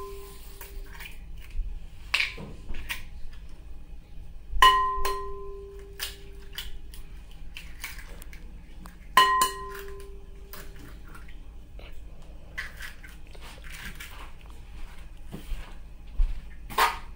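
Eggs knocked against the rim of a glass mixing bowl to crack them: two sharp knocks about four and a half seconds apart, each leaving the bowl ringing with a clear tone. Small shell-handling clicks come between, and a short louder scuff comes near the end.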